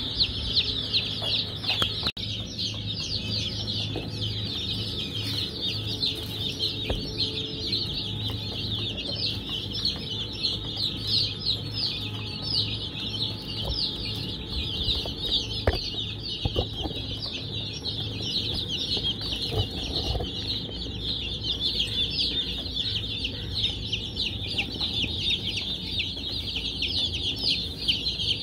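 A crowd of baby chicks peeping continuously, many high chirps overlapping into a steady chorus.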